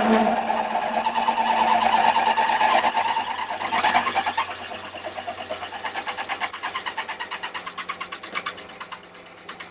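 Warco WM180 mini lathe running while a 12 mm twist drill in the tailstock bores into a workpiece held off-centre in the four-jaw chuck. A steady high whine with a fast, even chatter of the cut, and a brief rise in the cutting noise about four seconds in.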